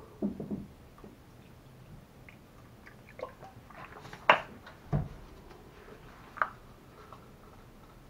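Quiet handling of plastic cups and a plastic water bottle while acrylic paint is thinned with water: scattered light clicks and taps, a sharper click about four seconds in and a dull knock just after it.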